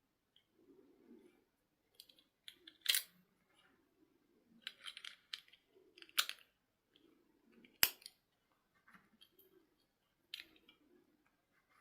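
Handling noises of small plastic toy pieces: soft rustling broken by three sharp clicks or snaps, the loudest near the end.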